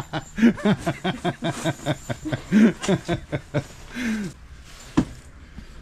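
A person's voice in short bursts without clear words, then a single sharp knock about five seconds in.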